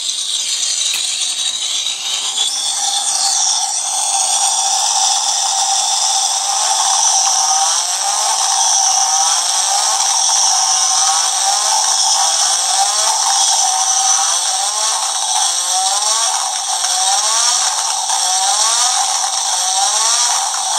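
Formula 1 engine sound effect from the DeAgostini Lotus Renault 97T model's sound module, played through a small 8-ohm 0.5-watt speaker. It is a tinny, buzzing engine note whose pitch climbs over and over, like an engine revving up through the gears.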